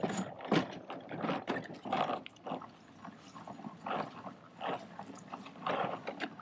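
Scotts EdgeGuard broadcast spreader pushed across a lawn with an empty hopper, its wheels, gears and plastic parts rattling in an uneven clatter a couple of times a second as the repaired axle drives the spinner again.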